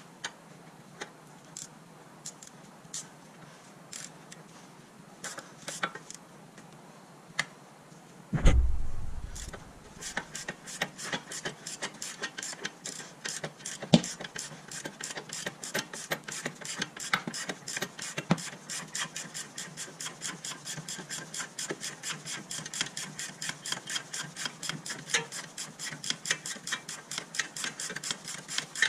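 Hand socket ratchet clicking steadily, about four clicks a second, as a nut on the front steering knuckle is turned. Before that come scattered light clicks of tools being handled and one heavy thump about eight seconds in, and a single sharp knock sounds a little later.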